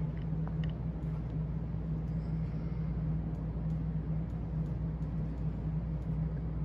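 A steady low hum, with a few faint light clicks about half a second in.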